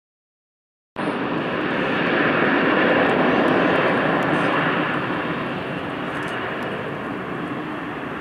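Jet airliner's engines running at high power as it speeds along the runway: a steady roar that starts abruptly about a second in, is loudest a couple of seconds later, and then slowly fades.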